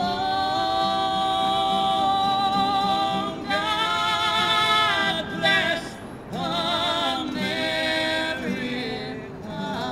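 Music: a solo voice singing long held notes, some with a wavering vibrato, with a brief break about six seconds in.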